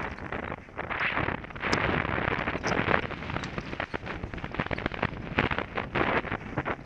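Downhill mountain bike rattling and clattering over a rough dirt trail at speed, with many sharp knocks from the bike and tyres over rocks and roots, over a steady rush of wind on a helmet-mounted camera's microphone.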